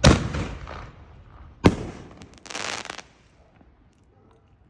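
4-inch aerial firework shells going off: a loud bang, a second sharp bang about a second and a half later, then a brief crackle.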